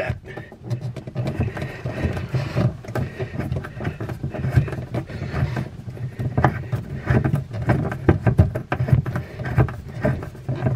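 Close, irregular scraping, rubbing and clicking over a low rumble, as a hand twists loose a plastic nut on a faucet supply line and jostles the camera in the cramped space under the sink.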